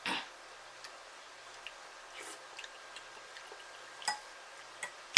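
Eating sounds from a close microphone: scattered soft mouth clicks and smacks from chewing fried chicken wings, with a brief wet burst at the start and sharper clicks about four seconds in.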